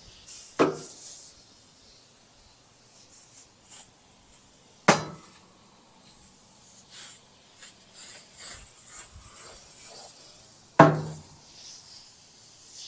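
Aerosol oven cleaner being sprayed in faint hissing bursts inside a grill, broken by three sharp knocks: one right at the start, one about five seconds in and one near the end.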